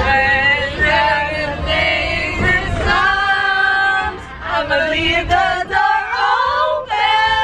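Several women singing together in a sing-along, holding and sliding notes, over the low rumble of the moving van.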